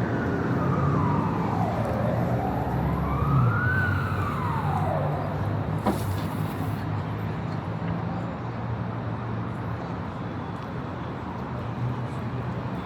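Emergency vehicle siren wailing, its pitch sweeping slowly down, up and down again before cutting out about five seconds in, over a steady rumble of city traffic. A single sharp click about six seconds in.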